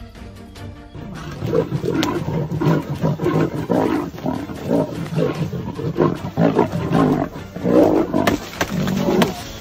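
Lions growling over and over as they fight in a tree, starting about a second in, with background music underneath.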